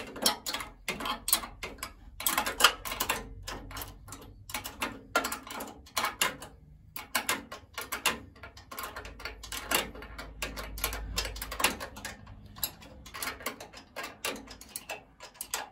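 Ratchet spanner clicking in runs of quick clicks, with short pauses, as the intake manifold nuts on a VW air-cooled engine are tightened down.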